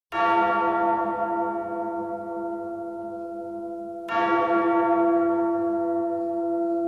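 A large church bell struck twice, about four seconds apart, each stroke ringing on with many overtones and slowly fading.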